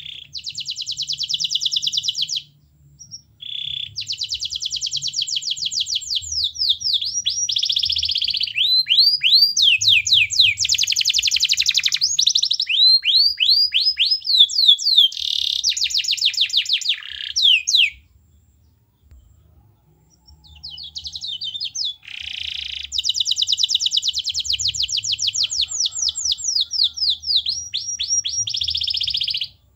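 Domestic canary singing: long phrases of very fast rolling trills alternating with runs of repeated falling whistled notes, broken by a pause of about two seconds a little past the middle.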